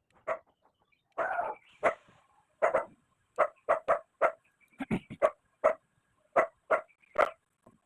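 A dog barking repeatedly, short sharp barks coming about two a second.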